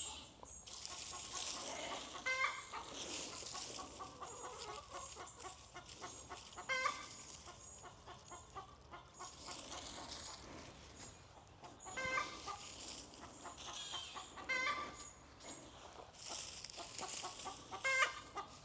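Chickens clucking, with short separate calls every few seconds and the loudest two near the middle and near the end.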